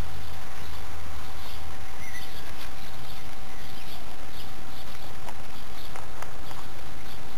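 Steady hiss with a constant thin whine and low hum from a low-quality camera microphone. Faint high chirps recur over it, and a few short clicks come in the second half.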